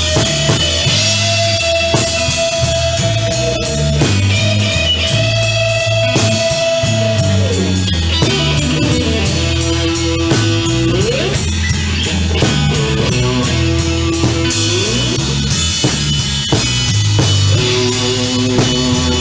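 Blues-rock band playing an instrumental passage with no vocals: electric guitar holding long notes that bend in pitch, over a bass line and a steady drum beat.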